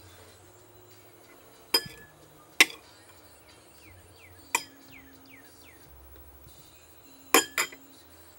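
Sharp clinks and taps on a hard surface, five in all: two about two seconds in, one about halfway, and a quick pair near the end, the loudest. A few faint high falling chirps sound between them.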